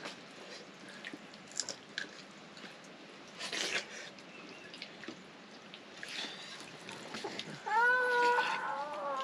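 Soft clicks and scrapes of people eating by hand from steel plates, then, about three-quarters of the way in, a cat meowing in one long, wavering call that is the loudest sound.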